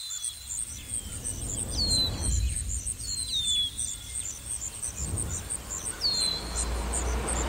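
Outdoor nature ambience: insects chirping in a rapid, steady pulse, while a bird gives a short downward-sliding whistle a few times. Underneath runs a low rumble that swells near the end.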